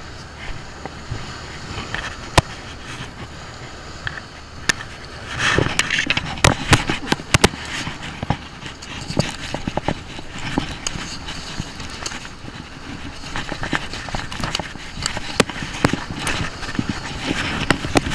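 Fabric rustling and rubbing against a body-worn camera's microphone, with many irregular sharp clicks and knocks over a steady rushing noise; the rubbing is loudest between about five and eight seconds in.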